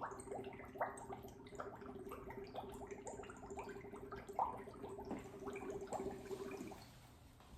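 Water bubbling in a cup as a foley stand-in for a bubbling cauldron. A quick, uneven stream of small bubble pops that stops about seven seconds in.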